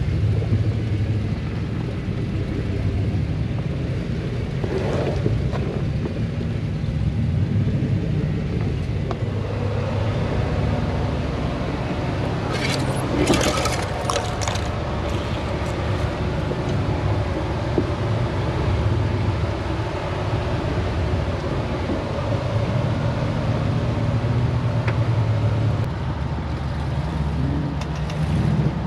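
Jeep engine running at rock-crawling speed, a steady low rumble, with brush scraping along the body for a few seconds near the middle.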